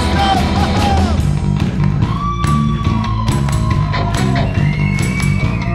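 Live rock band playing an instrumental passage between sung lines: drum kit and bass guitar, with long held high notes that slide slightly in pitch over the top.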